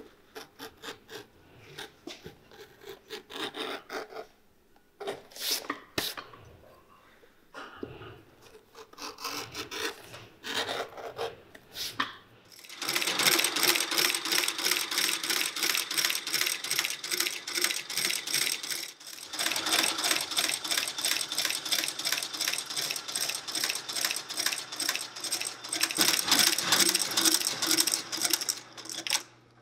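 Scraping and rubbing on a boot, like a brush or rasp worked by hand. It starts as irregular strokes, then becomes a long run of fast, even back-and-forth strokes, several a second, broken once by a short pause.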